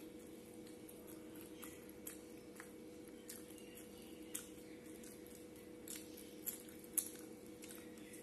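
Faint eating sounds of a person eating with her fingers: scattered small clicks and mouth smacks as a fried prawn fritter is handled and bitten, the sharpest about seven seconds in, over a steady low hum.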